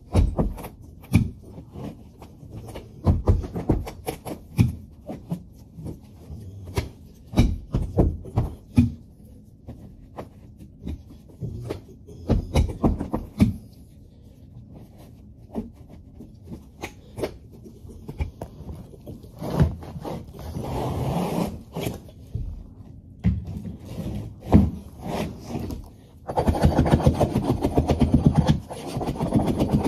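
Carpet being trimmed and tucked into the gap along the baseboard with hand tools: repeated scraping, rubbing and short sharp knocks. About 26 seconds in a louder, continuous fast rasping begins.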